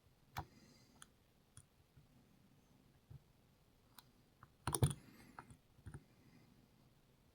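Lock-picking tools clicking in the keyway of a Rav Bariach 10-pin dimple lock: scattered small, sharp clicks, with the loudest cluster a little under five seconds in.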